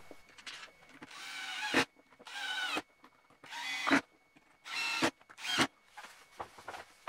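Small electric screwdriver running in four short bursts, each a whine that rises and ends in a sharp click, driving screws into the plastic housing of a cordless drill.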